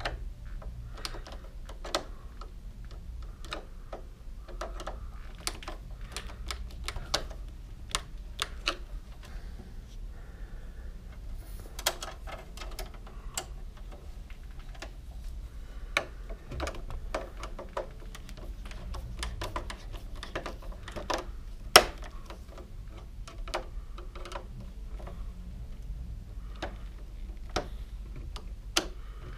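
Irregular small clicks, taps and scrapes of a screwdriver and wire being worked at the terminal screw of a 30 amp double-pole breaker, with one sharper knock about two-thirds of the way through, over a low steady hum.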